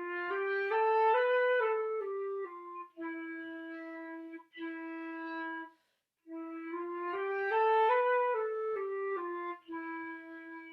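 Flute playing a simple beginner melody. It starts on a low E, climbs step by step and comes back down to held Es, then repeats the phrase after a short gap. It ends on a long low E that fades out.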